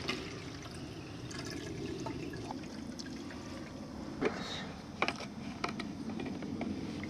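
Liquid pouring steadily, a low trickling rush, with a few light clicks near the middle and later on.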